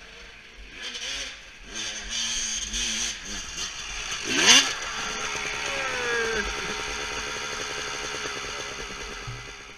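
Dirt bike engine revving hard in bursts up a steep climb, with a sudden loud peak about four and a half seconds in as the bike rears up and tips over. The note then falls away, and an engine keeps running steadily.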